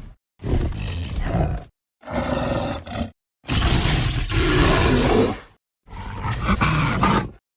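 Film dinosaur roars and growls edited together as the voice of a made-up spinosaur hybrid: four separate calls, the third the longest at about two seconds, each cut off into dead silence.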